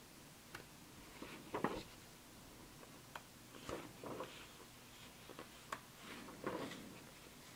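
Paper pages of a stapled rulebook being turned by hand: a series of brief, soft rustles and flicks.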